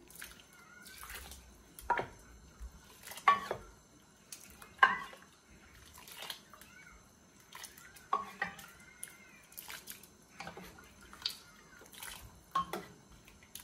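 Liquid scooped from a pan with a small metal cup and poured over a whole raw duck, splashing and trickling back into the pan. Separate pours come about every one and a half seconds.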